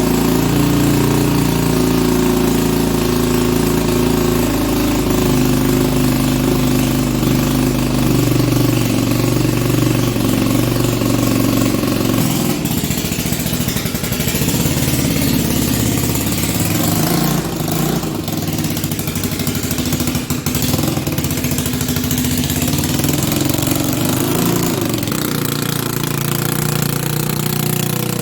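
A freshly rebuilt ATV (four-wheeler) engine running after its carburetor has been adjusted, holding a steady idle. About twelve seconds in, the deep low rumble drops away and the engine sound becomes thinner and more uneven.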